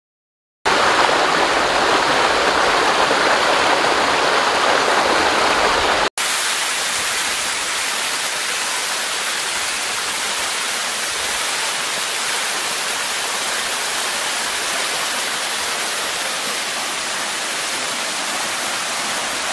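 Steady rush of falling water from a waterfall. It starts abruptly about a second in and is interrupted by a sudden cut about six seconds in, after which the rush is slightly quieter and flatter.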